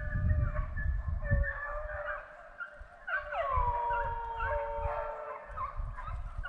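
A pack of deer hounds baying in chorus while running a deer, several dogs' long drawn-out howls overlapping. More voices join about three seconds in, with long howls that slide down in pitch.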